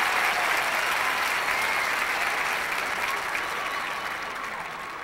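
Large stadium crowd applauding, the applause dying away steadily.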